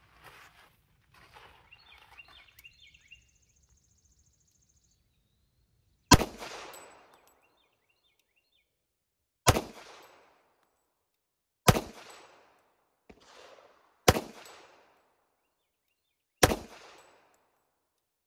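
Five pistol shots from a Ruger SR1911 in .45 ACP, fired slowly one at a time about two to three seconds apart, each a sharp bang trailing off in a short echo.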